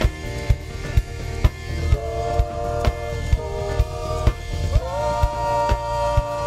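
Live band playing: a floor tom struck with sticks about twice a second, over electric guitar and bass. From about two seconds in, held notes join, sliding up into a higher chord just before five seconds in.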